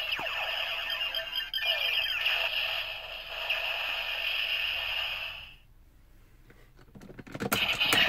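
DX Ziku-Driver toy belt playing electronic sound effects and music through its small speaker, as its display scrolls a finisher call ending in "BREAK". The sound stops about five and a half seconds in; near the end come several sharp clicks, then its sounds start again.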